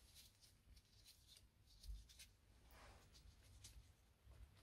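Faint handling sounds of a small steel clamp being worked loose from a lathe's cross slide: scattered light metallic clicks, a brief scrape about three seconds in and a soft low bump about two seconds in.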